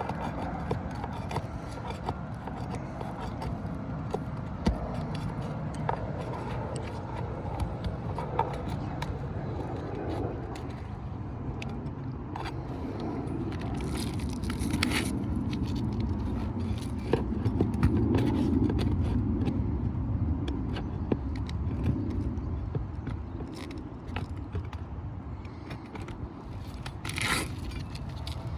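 Pry bar working under a laminate asphalt shingle: scraping and small clicks as the bonding strip is broken and the shingle is worked against nails that are still holding. Louder scrapes come once near the middle and once near the end, over a steady low background noise.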